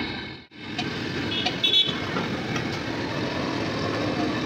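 Busy street traffic noise, with a short vehicle horn toot about a second and a half in.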